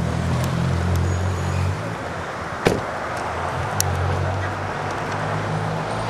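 Car engine running steadily with road and street noise, and one sharp thump a little before the middle.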